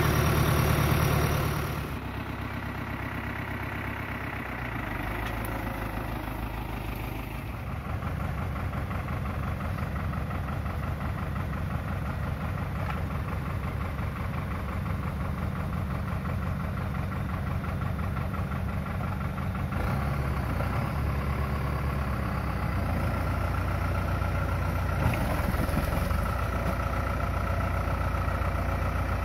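Farm tractor's diesel engine running steadily in deep mud. The sound drops about two seconds in, then grows a little louder around eight and again around twenty seconds in.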